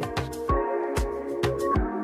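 Electronic background music with a steady beat: deep kick-drum thumps about twice a second, sharp high strokes between them and sustained synth chords.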